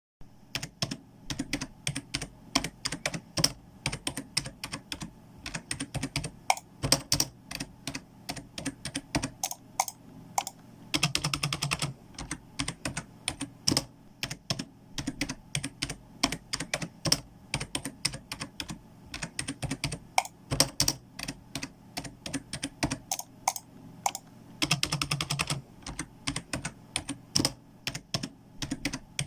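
Typing on a computer keyboard: an irregular patter of keystrokes, with two brief runs of fast, even clicking, once about eleven seconds in and once near twenty-five seconds.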